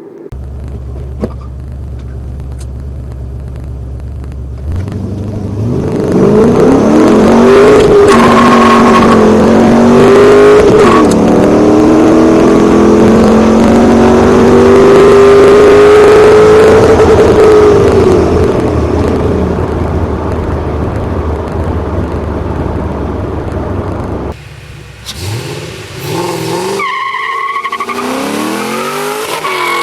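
Modified 2006 Ford Mustang GT's 4.6-litre V8, with long-tube headers, X-pipe and Borla axle-back exhaust, idling and then accelerating hard through the gears of its manual gearbox. The engine note climbs, drops at two gear shifts and pulls long before backing off. The engine revs up again near the end.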